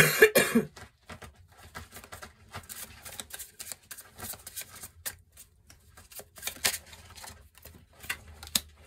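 Tarot cards being handled on a table: irregular light clicks and rustles, louder in the first second.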